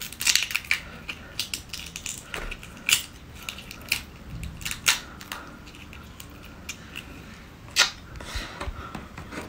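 Hands peeling the shell off a large raw red devil shrimp: the shell cracks and snaps in scattered sharp bursts as it is pulled away from the meat.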